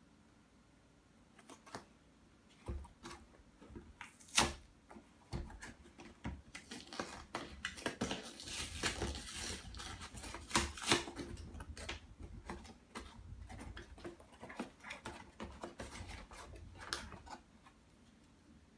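A small cardboard retail box handled and torn open by hand: a few taps and knocks, the sharpest about four seconds in, then several seconds of crackling, tearing cardboard, then small clicks and rustles as the contents are lifted out.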